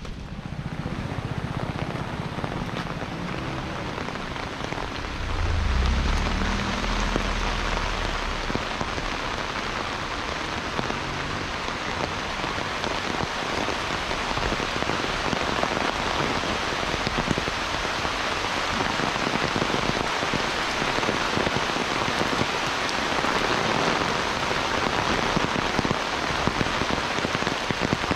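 Heavy monsoon rain pouring down in a dense, steady hiss that gets louder about five seconds in. A low rumble sits underneath it for the first several seconds.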